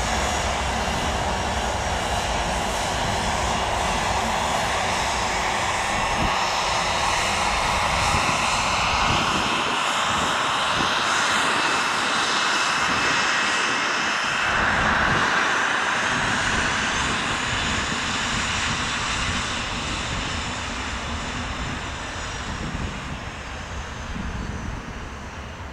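Pilatus PC-24 business jet taxiing, its two Williams FJ44 turbofans whining steadily over a rushing hiss. The sound swells as the jet passes close and fades near the end as it moves away.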